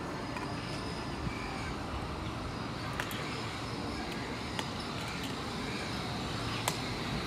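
London Underground S7 train running into the platform: a steady rumble of wheels on rail with a faint high whine and a few sharp clicks.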